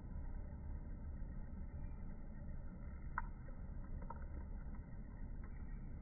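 Steady low background rumble, with a few faint short clicks around the middle.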